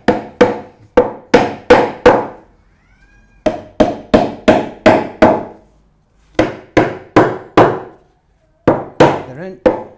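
Hammer blows driving glued ash chair legs home into the seat's holes: four runs of quick blows, about three a second, each with a short wooden ring, separated by brief pauses.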